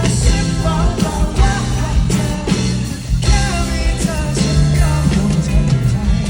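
A live rock band playing with a singer carrying the melody over bass and a steady drum beat.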